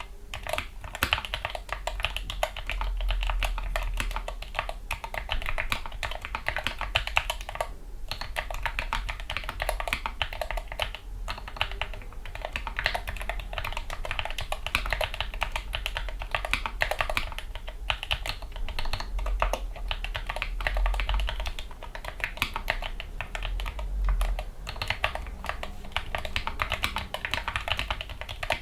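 Continuous typing on a Gamakay MK61 keyboard with lubricated Gateron Yellow linear optical switches and foam dampening: a steady stream of keystroke clacks, with a couple of short pauses.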